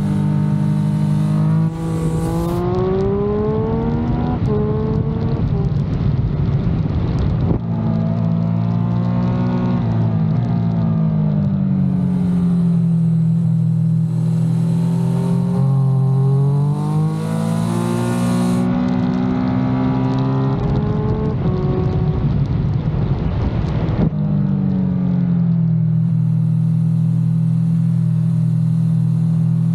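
Triumph Speed Triple 1200 RS's three-cylinder engine under spirited riding. The revs climb and fall continuously, with a few abrupt pitch changes at gear shifts.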